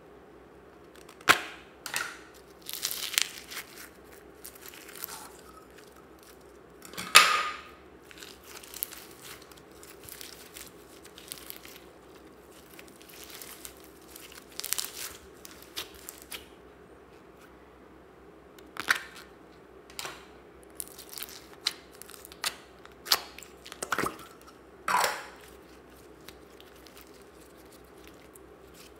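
Hands stretching and squishing glitter slime packed with foam beads (floam): irregular sticky crackles, pops and tearing sounds, with a few louder snaps.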